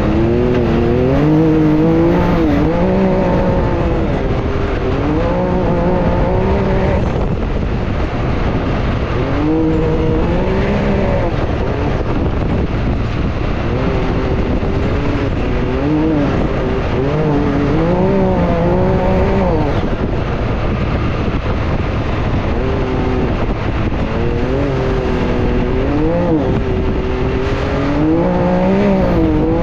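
Can-Am Maverick X3's turbocharged three-cylinder engine heard from the cockpit at racing pace, its revs climbing and dropping again and again as the driver accelerates and lifts through the turns of a dirt track. A steady rush of wind and dirt noise runs underneath.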